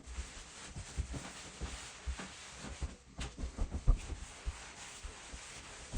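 Cloth rubbing and wiping wood stain across a hardwood floor by hand, with irregular soft thumps, the loudest about four seconds in, over a steady hiss.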